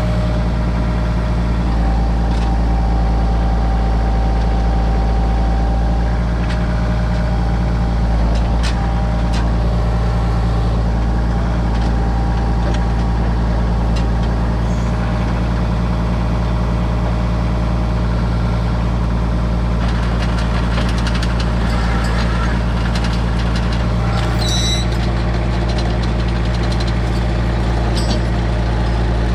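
Logging tractor's engine running steadily at constant speed, with a thin whine for a few seconds near the start.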